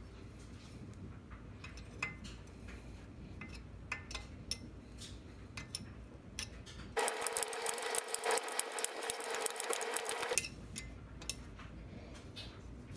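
Hand wrenches clicking and tapping on the half-inch oil-line fitting of a Harley-Davidson Shovelhead rocker box as it is held and loosened. About seven seconds in comes a stretch of rapid, dense metallic clicking, lasting some three seconds, which stops abruptly.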